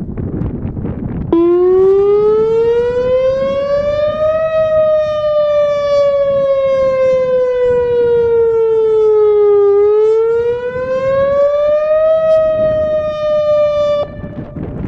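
Outdoor electronic public warning siren sounding its test wail: the tone starts abruptly about a second in, rises, falls slowly, rises again, then cuts off suddenly near the end.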